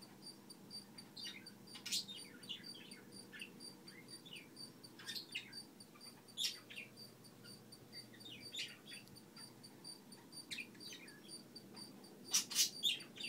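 Birds chirping: many short, high, quickly falling chirps scattered throughout, with a cluster of louder ones near the end.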